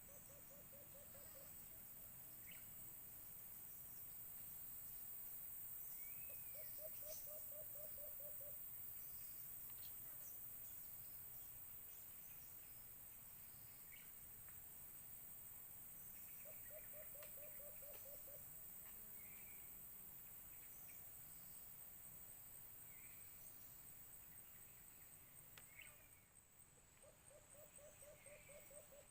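White-eared brown dove calling: four short runs of quick, low hooting notes, several seconds apart, faint. A steady high insect whine runs under them, with a few small chirps from other birds.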